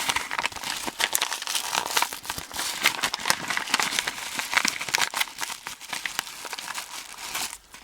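Packaging being unwrapped by hand: continuous crinkling and tearing, stopping abruptly near the end.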